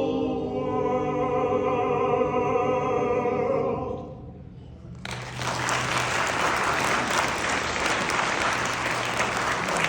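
Vocal group singing the final held chord of a song without accompaniment, fading out about four seconds in. About a second later an audience starts applauding, steady to the end.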